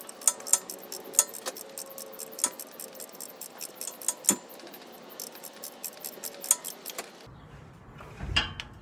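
A 14 mm wrench working a flex plate-to-torque converter bolt loose: a run of irregular light metallic clicks and clinks that stops about seven seconds in.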